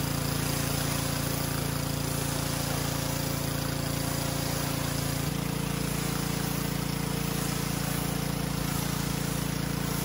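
Pressure washer running steadily while spraying water through a 15-degree tip onto a painted metal garage door: a constant motor drone under the hiss of the spray, with a slight change in the drone about five seconds in. This pass rinses soap and surface dirt off the door.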